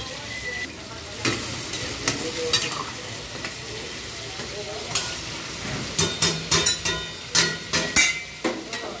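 Chicken frying in oil in steel karahis, a steady sizzle, with long metal spatulas scraping and clanking against the pans as the pieces are stirred, the clanks coming thickest in the last few seconds.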